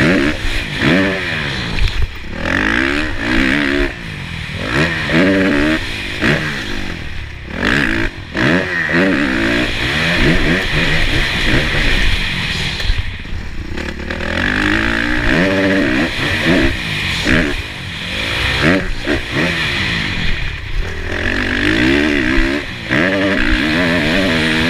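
Kawasaki KX450F four-stroke single-cylinder motocross engine revving hard, its pitch rising and dropping over and over as the throttle opens and shuts, with brief drops in level when it is shut off. Heard from a helmet-mounted camera.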